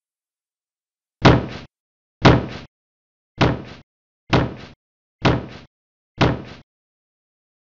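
Heavy elephant footstep sound effects: six deep thuds about a second apart, each with a quick second thump.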